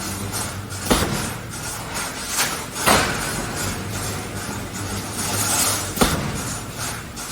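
Steel rebar mesh welding machine at work: a steady low hum under machine noise, with three sharp metallic clanks, about a second in, near three seconds and around six seconds.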